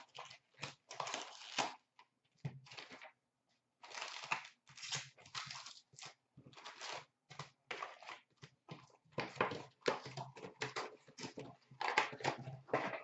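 Cardboard box of hockey card packs being torn open by hand and its wrapped packs pulled out: a run of irregular tearing, crinkling and rustling noises with short pauses between them.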